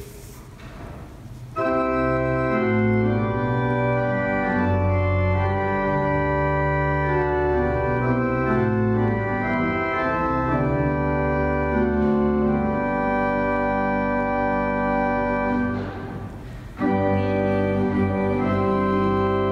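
Organ playing slow, sustained chords for the sung creed, starting a moment in, with a brief break near the end before the chords resume.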